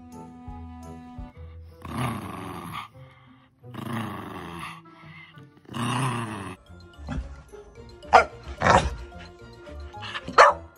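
A pug growling in three short bursts, each under a second. Then a dog barking several times in the last few seconds. Background music at the start.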